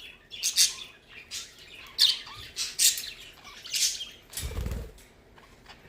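Pet budgerigar giving a string of short, harsh chirps and squawks, about six in four seconds, with a single low thump about four and a half seconds in.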